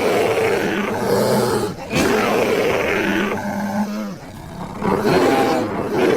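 Brown bear roaring: three long roars with short breaks between them.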